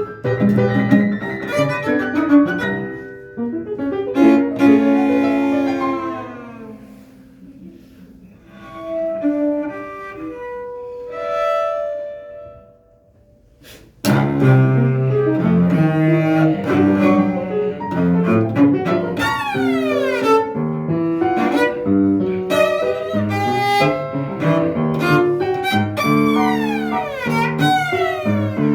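Cello and piano playing a classical duet. A loud passage softens into a few quiet held notes and almost dies away, then the music comes back suddenly loud about halfway through, with fast descending runs.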